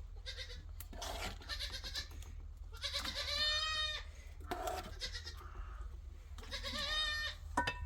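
Goats bleating, with two clear long quavering bleats about three seconds in and about seven seconds in, and fainter calls between them.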